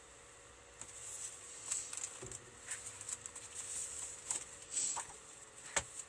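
Faint rustling and handling noise with scattered light clicks and taps, as someone moves about and rummages among small objects out of view.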